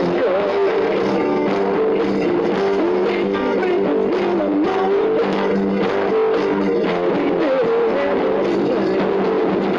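Background music with a guitar, playing steadily.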